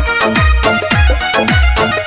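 Rasiya folk song music in an instrumental passage: a drum beat of deep strokes that slide down in pitch, about two a second, under a sustained melody line.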